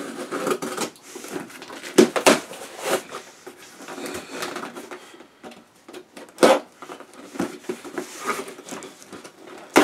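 Small survival knife slitting the packing tape along a cardboard box, with irregular scraping and rustling of the cardboard and a few sharp knocks as the box is handled.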